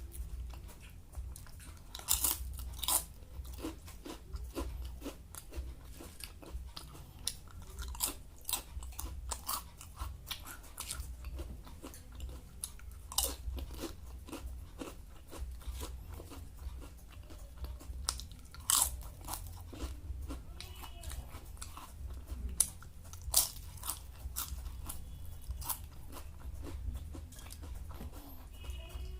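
Close-up chewing and biting of crunchy fried food, irregular sharp crunches throughout, the loudest a few seconds in and again in the second half.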